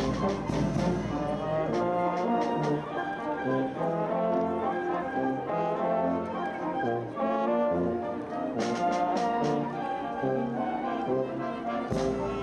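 A live band with brass instruments playing a piece, the brass carrying the tune over a bass line that steps from note to note. There are a few sharp percussion strikes about nine seconds in.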